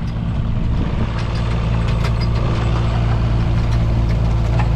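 Excavator's diesel engine running steadily, with a few faint clicks on top.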